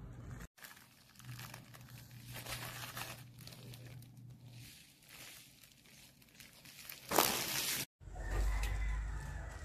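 Clear plastic wrapping on replacement HEPA air-purifier filters crinkling as the filters are handled, with a louder burst of crinkling about seven seconds in.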